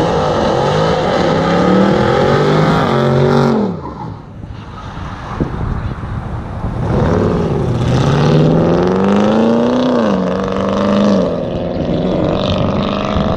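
A car engine accelerating hard, its pitch climbing and then dropping at a gear change, twice: once early on and again after a quieter few seconds in the middle.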